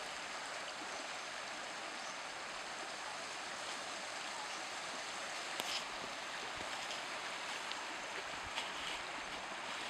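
Shallow stream rippling over a gravel and stone bed, a steady even rush of water, with a couple of faint clicks about halfway through and near the end.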